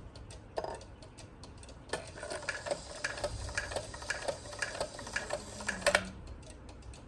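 Old Regula cuckoo clock movement ticking evenly at about three ticks a second, with a louder click about six seconds in.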